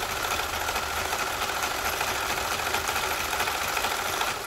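Singer Capri domestic sewing machine running steadily at speed, sewing an overlock stitch, then stopping suddenly near the end.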